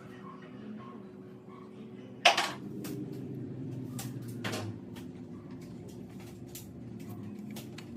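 A sharp click about two seconds in, then a scattering of lighter clicks and taps over a faint low hum.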